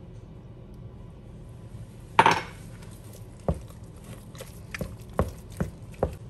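Wooden spatula knocking against the sides of a stainless steel pot while mixing mashed potatoes, about six sharp knocks in the second half. A louder ringing clank about two seconds in is the loudest sound.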